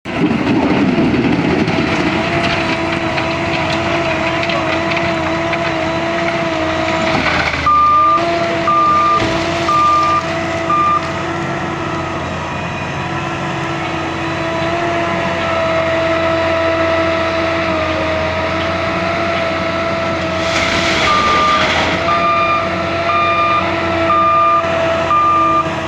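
Diesel engine of an L&T 9020 wheel loader running steadily, with its reversing alarm beeping just under once a second in two spells, about eight seconds in and again near the end. Two brief louder surges of noise come just before each spell of beeps.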